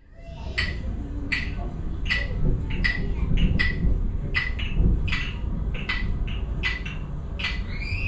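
Music: a sharp percussive click with a high ringing tone, struck about every three-quarters of a second over a continuous low rumble, fading in at the start.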